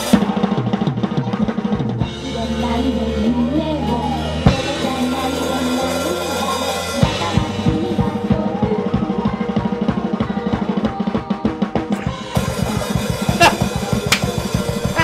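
Heavy metal drumming on a live drum kit: fast bass-drum and snare hits over a backing track with low bass notes, turning into a louder, denser blast beat about twelve seconds in.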